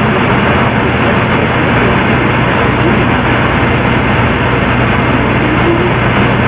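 Loud, steady static-like hiss with a low hum under it, even throughout and dull in tone.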